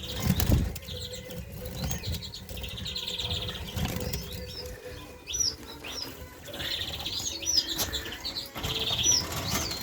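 Small cage birds in an aviary chirping and calling, with a short buzzy trill repeated several times, quick high chirps, and wing flutters near the start.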